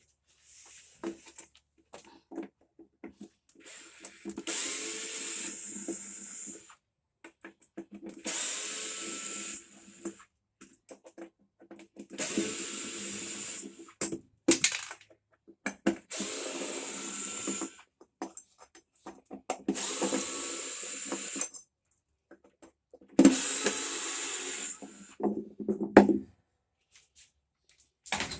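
A power tool run in about six separate bursts of roughly two seconds each, with short pauses between them.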